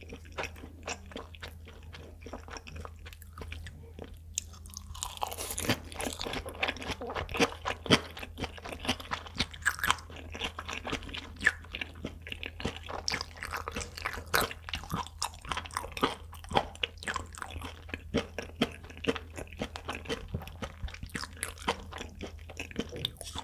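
Close-miked chewing of raw tuna sashimi wrapped in seaweed: wet mouth clicks and smacks, sparse at first, then thick and continuous from about five seconds in.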